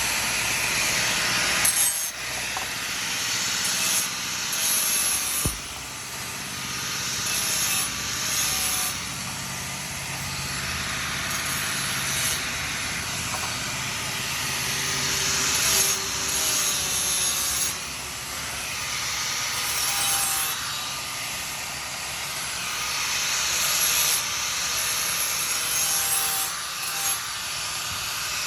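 Rough, rasping abrasive work on a knife blade, such as sanding, filing or sawing: a continuous scratchy hiss that swells and eases every few seconds, with a single faint knock about five seconds in.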